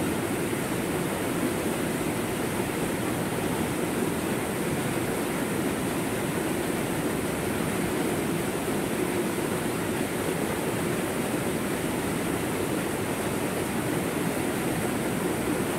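Stream water pouring over a small rocky waterfall into a cascade: a steady rushing of white water with no break or change.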